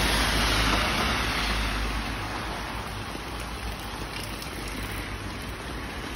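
Heavy rain falling on a road and pavement, a steady hiss with a low rumble underneath, louder for the first couple of seconds and then easing slightly.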